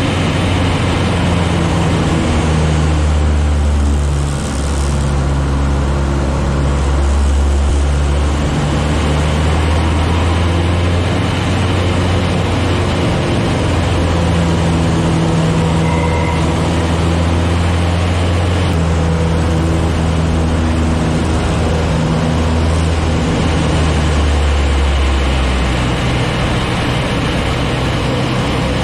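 Citabria's four-cylinder piston engine and propeller droning, heard inside the cabin with air noise, through a loop into an aileron roll. The engine pitch steps up and down as power and airspeed change through the manoeuvre.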